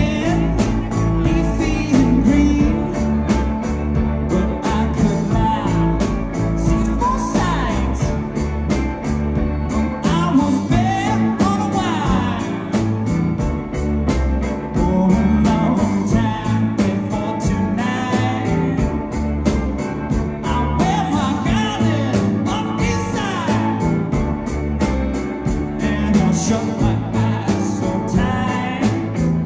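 Live rhythm-and-blues rock and roll band playing: electric guitar and upright bass, with a male voice singing at times.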